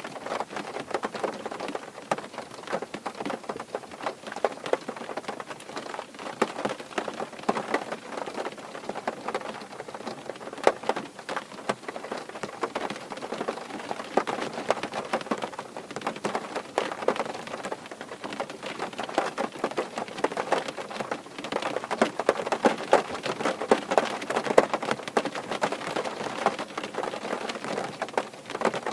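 Rain falling on a car's roof and windows, heard from inside the car: a dense, continuous patter of many small drop hits that never lets up.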